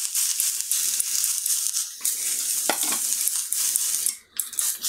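Steak sizzling and crackling as it sears in a hot, dry stainless-steel AMC frying pan with no fat, with a few light taps of the metal tweezers; the sizzle dips briefly near the end.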